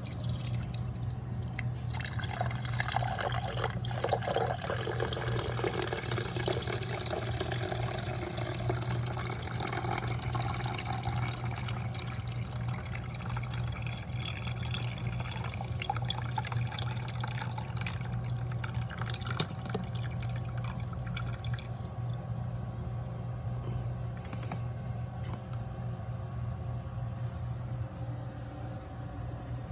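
Water trickling and gurgling with small crackles, thinning out over the last third, over a steady low electrical hum.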